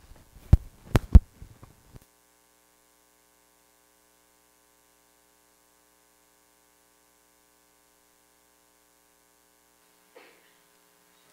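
A few loud knocks and thumps on a microphone being handled in the first two seconds. Then a steady electrical hum from the sound system, with a brief faint noise near the end.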